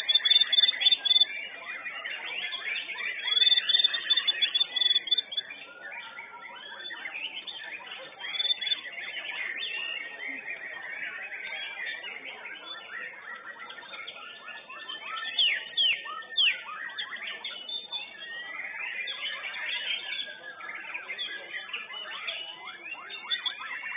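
Murai batu (white-rumped shama) songbirds singing in competition: dense, overlapping chirps and whistled phrases, with louder bursts of song at the start, a few seconds in, and again past the middle.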